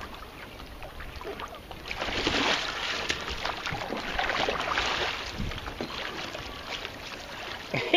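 Water splashing and sloshing as a swimmer climbs from the water onto the back deck of a sea kayak, loudest from about two to six seconds in.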